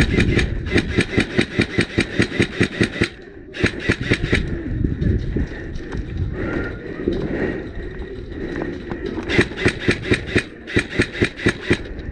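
LCT AK-12 electric-blowback airsoft rifle firing rapid, evenly spaced strings of shots: a long string of about three seconds, a short burst around four seconds in, and more strings near the end.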